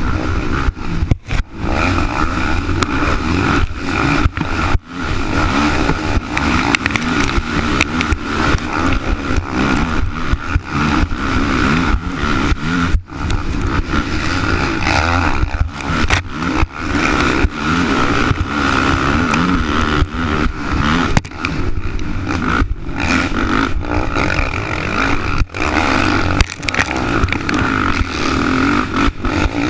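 Race quad's engine running hard under racing load, heard from a camera mounted on the machine, the revs rising and falling continuously. Several brief sudden dips in the sound break it up, with scraping and clatter from the rough trail.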